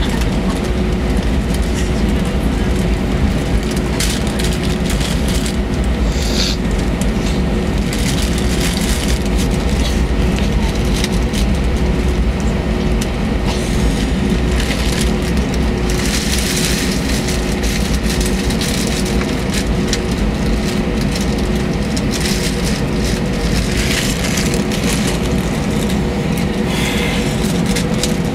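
Cabin noise inside a Jetstar Airbus A320 moving along the runway on the ground: steady jet engine sound with a low rumble from the wheels and a constant hum.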